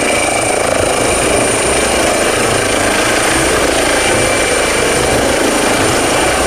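Helicopter running steadily: a loud, even rotor and engine noise with a thin high whine over it.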